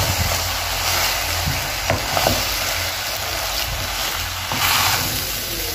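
A spoon stirring mashed potatoes into browned ground beef in a metal pot over a steady sizzle from the pan on low heat, with a couple of light clicks about two seconds in.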